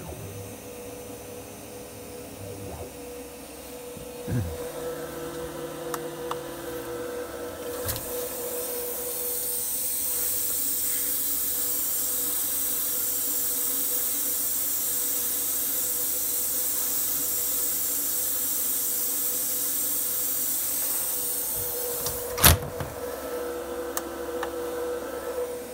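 Small CNC mill with a router-type spindle drilling HDPE plastic: a steady spindle tone with the stepper motors whining and gliding as the axes move in the first few seconds. A steady high hiss runs through the middle, and a single sharp click comes near the end.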